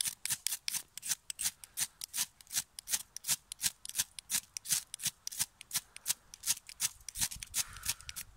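Ferrocerium rod scraped hard and fast with a steel striker, a rasping stroke about five times a second, striking sparks down into a tinder bundle to light it.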